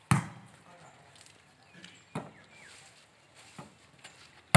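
Volleyball being struck by hand during a rally: sharp single slaps of palm on ball, a loud one at the start, a smaller one about two seconds in, and the loudest at the very end.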